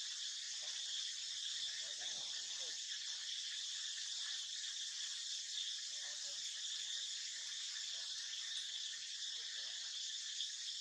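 Steady high-pitched insect chorus: an even, continuous buzzing drone of crickets or cicadas.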